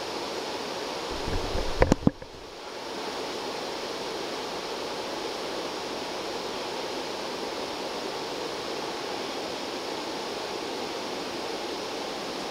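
Steady rushing outdoor background noise, broken about two seconds in by a short cluster of low thumps and a few sharp knocks.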